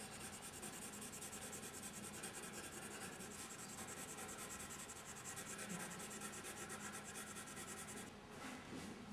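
Pencil scratching on drawing paper in quick, repeated strokes, faint, over a low steady hum.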